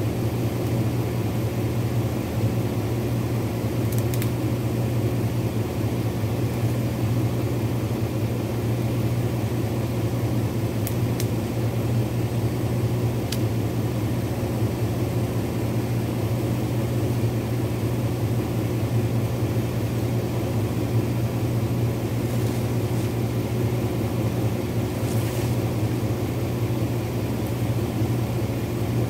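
Vehicle engine idling steadily, a low even hum, with a few faint clicks over it.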